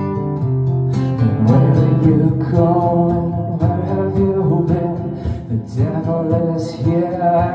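Acoustic guitar strummed solo, chords struck at about two a second and left to ring between strokes.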